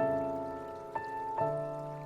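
Background piano music, slow and gentle: a few notes struck at the start, about a second in and again shortly after, each ringing on and fading.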